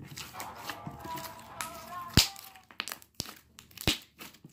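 Pink glitter slime squeezed and kneaded by hand, giving a few sharp snapping pops as air is squeezed out, the loudest about two seconds in and another near the end.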